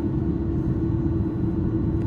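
Airbus A330-300 cabin noise in flight: a steady drone of engines and airflow, with a constant low hum running through it.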